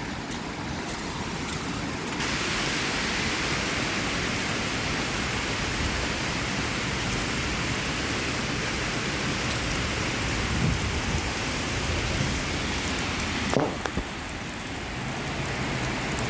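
Steady rushing roar of a flooded, fast-running river. The noise grows stronger about two seconds in and eases a little near the end.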